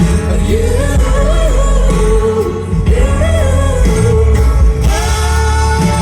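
A pop band playing live, with a singer holding long, sliding notes over steady bass and drums.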